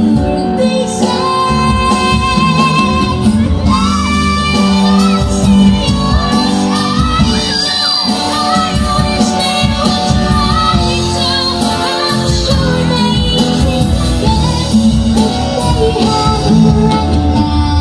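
A boy singing into a microphone over loud backing music, with shouts from the crowd.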